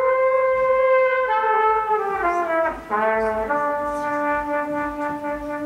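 Trumpet playing a slow solo line: a long held note that slides downward in pitch over a couple of seconds, a brief break, then a lower note held steadily from about three and a half seconds in.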